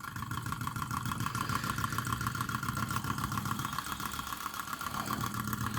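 Model Rider-Ericsson hot-air engine running steadily at a good speed with its water pump working, a fast, even beat.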